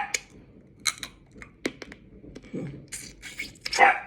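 Close-up mouth sounds of eating crab legs: a string of sharp clicks, lip smacks and shell crunches, with a louder short burst near the end.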